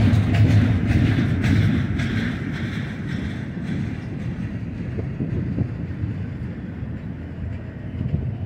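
Double-stack intermodal well cars rolling slowly past on the rails: a low rumble of steel wheels with rattling clatter over the first couple of seconds, easing to a quieter steady rumble.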